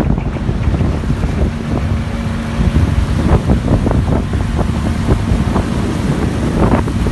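Wind buffeting the microphone on a motorboat under way, over the low drone of its 60 hp Suzuki outboard, with water splashing against the hull.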